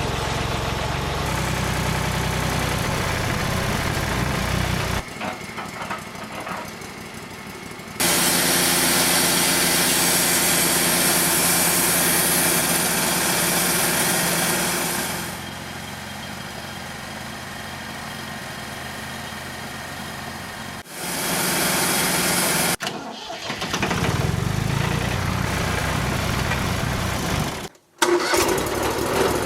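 Wood-Mizer portable band sawmill running: the engine runs steadily, and for several seconds a third of the way in the band blade cuts through a pine log with a loud hiss. The sound breaks off abruptly a few times where clips are joined.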